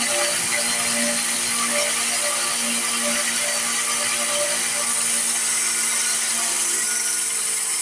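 Electric sander running steadily with a constant abrasive hiss over a motor hum, as a fillet knife's edge is ground against the abrasive to raise a burr.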